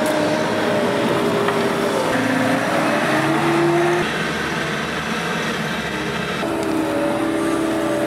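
Skid-steer loader diesel engines running under load and changing pitch as the machines push and dump dirt. The sound changes abruptly about four seconds in and again near the end, as it switches between machines.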